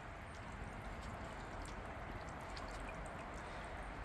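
Water from a small solar-powered planter fountain trickling and dripping steadily.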